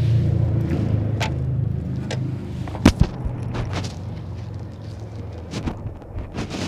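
Onewheel Pint electric board set down on a concrete deck and stepped onto: a sharp double knock about three seconds in, with lighter knocks and shoe scuffs around it, over a low steady hum that fades about halfway through.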